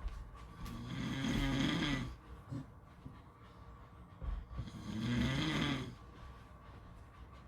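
A person snoring: two long rasping snores about four seconds apart, each lasting over a second, with quieter breathing between them.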